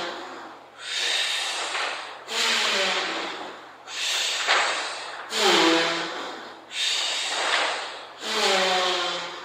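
A person breathing heavily and rhythmically, with a loud breath about every one and a half seconds, each starting with a voiced sound that falls in pitch and trailing off into a breathy hiss.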